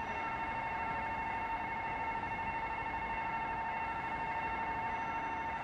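Electronic railroad crossing warning bell sounding continuously as a steady high ringing tone, then cutting off at the very end as the crossing signal stops.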